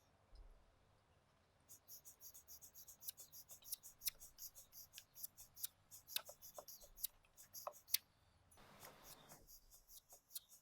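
Faint, irregular light clicks and taps of hands handling small parts, with a brief rustling hiss about nine seconds in.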